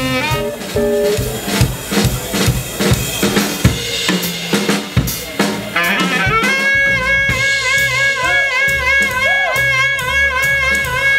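Live jazz band: a drum kit break of snare, bass drum and cymbal strikes for about six seconds, then the horn section of saxophones and trombone comes in together, holding long notes over the drums.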